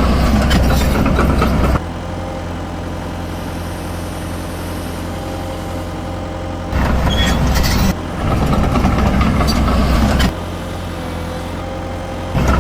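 Simulated diesel engine sound of an RC model excavator, a steady idle that jumps abruptly to a louder, rougher working rev and back several times.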